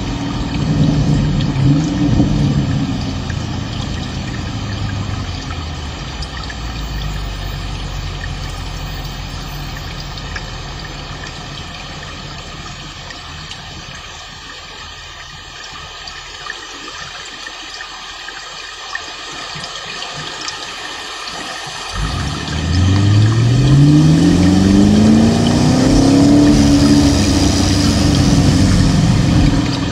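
A motor running steadily and fading down, then, about two-thirds of the way in, getting louder with a pitch that rises steadily for several seconds before levelling off, as when a machine spins up to speed.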